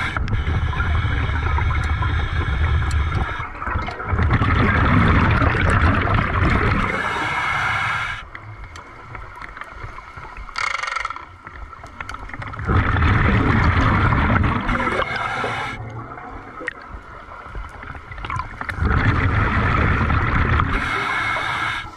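A scuba diver breathing through a regulator underwater: bubbling exhalations of three to four seconds each, with quieter gaps between them and a short hiss of inhalation near the middle.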